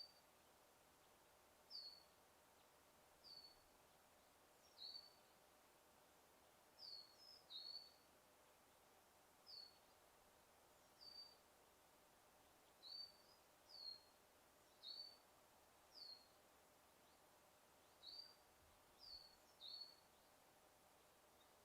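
A small bird's short, high chirps, repeated about fifteen times at irregular intervals. Some notes slide down in pitch and others curl up, over a faint steady background hiss.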